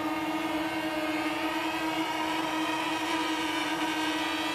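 ZMR250 quadcopter's motors and propellers buzzing steadily in flight at a nearly constant pitch.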